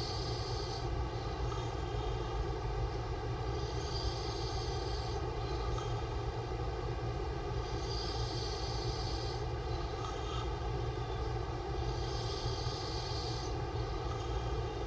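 A sleeping man's open-mouth snoring, heard as hissy breaths that come about every four seconds, over a loud, steady mechanical drone.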